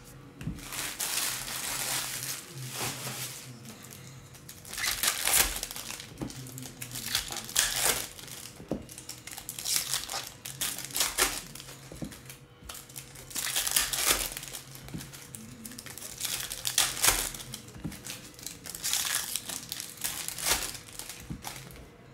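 Foil trading-card pack wrappers crinkling in repeated irregular bursts as packs are handled and opened, with cards shuffling between them.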